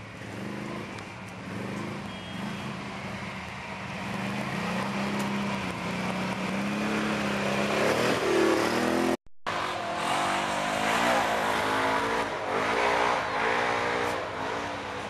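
Quad-bike (ATV) engines running and revving on a climb, the pitch rising and falling with the throttle. The engine grows louder as the first quad passes close about eight seconds in; after a brief break in the sound, more revving follows as the next quad comes up.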